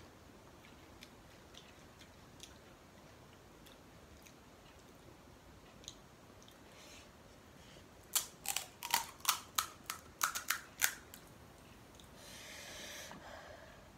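Crisp, hollow fried puri shells (golgappa) crunching and cracking: about ten sharp cracks in quick succession over some three seconds, after faint scattered clicks, followed near the end by a brief soft rustle.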